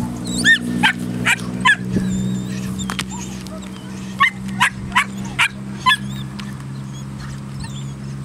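Belgian Malinois puppy giving short, high-pitched yipping barks in excitement at a bite rag being teased in front of it: four quick yips, then five more a couple of seconds later. A steady low hum runs underneath.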